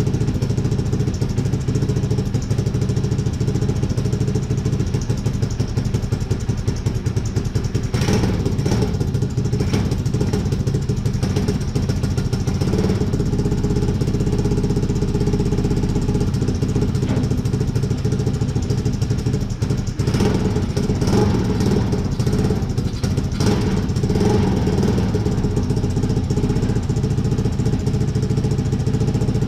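A 250cc V-twin motorcycle engine mounted in a lawn tractor, running steadily at idle through its new exhaust stack, with a few short, irregular bursts about 8 seconds and 20 seconds in.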